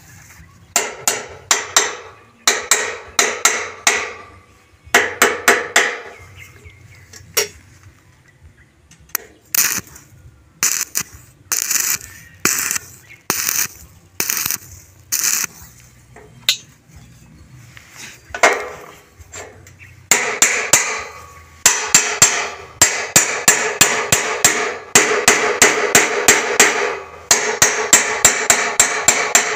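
Hammer striking steel tubing in bursts of rapid, ringing blows with short pauses between them. The blows come thickest in the last third.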